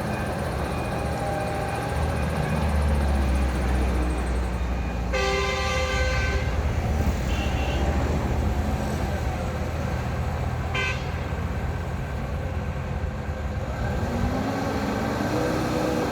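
All-terrain forklift engine running steadily, with a horn honk lasting just over a second about five seconds in and a short beep near eleven seconds. Near the end a tone rises and falls in pitch.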